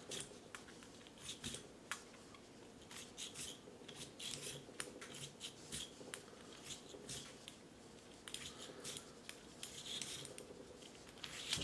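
Bore brush on a cleaning rod, wet with solvent, scrubbing in and out of the chambers of a .357 Magnum Ruger New Model Blackhawk's blued steel cylinder: a faint, irregular scratching with small metallic clicks.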